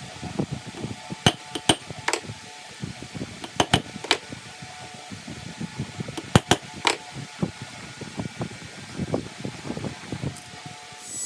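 Hammer striking a bent steel vise lock-nut handle to straighten it: irregular metallic knocks and taps, several ringing briefly, over a steady fan hum.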